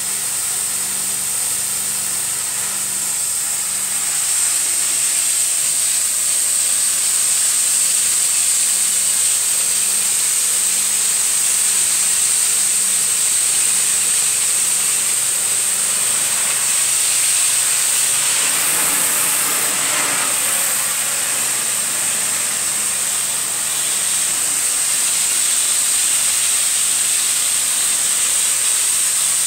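Rotovac Bonzer carpet-extraction wand under vacuum, drawn across wet carpet to suck out water: a steady loud hiss of rushing air with a constant high whistle and a faint low hum underneath.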